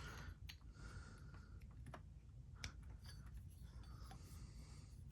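A few faint, scattered clicks from handling the plastic batarang pieces of a puzzle box prop replica, over quiet room noise.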